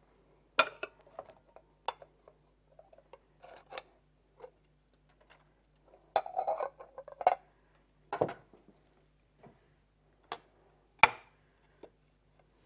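Plates and a serving utensil clinking and knocking on a countertop as food is dished up: a scattering of separate clinks and knocks, busiest about six to seven seconds in, the loudest a single sharp knock about eleven seconds in.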